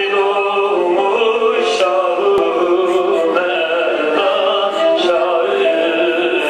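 Singing with instrumental accompaniment: a devotional melody in long held notes, continuous and steady in loudness.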